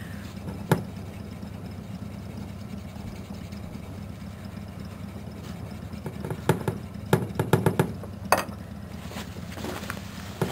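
A cloth pad rubbing polish by hand over a chrome exhaust pipe, with a cluster of short scrubbing strokes between about six and eight and a half seconds in, over a steady low hum.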